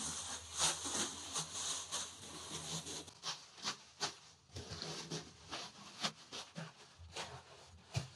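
Fresh leafy branches rustling and crackling as they are spread and pressed down by hand into a bed of leaves, in quick irregular strokes.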